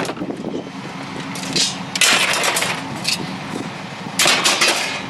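A vehicle engine running steadily, with several short bursts of clatter over it.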